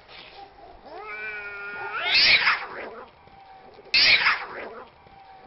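Cats fighting: a drawn-out yowl starting about a second in, then two sudden loud, harsh outbursts about two and four seconds in.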